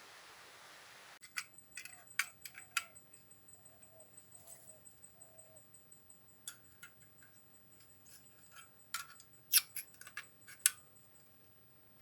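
Irregular sharp clicks and taps, loudest in the second half. A faint steady high tone runs under them, and about five short, soft falling chirps come in the first half.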